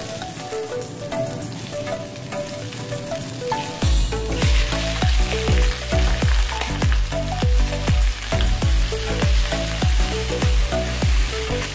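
Chicken wings and ginger sizzling in hot oil in a nonstick frying pan, stirred with a spatula; the sizzle gets much louder about four seconds in. Background music plays throughout, and a regular bass beat comes in at about the same time.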